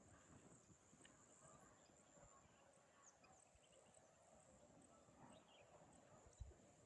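Near silence: faint outdoor ambience with a steady high-pitched hum, a few faint chirps, and one soft low thump near the end.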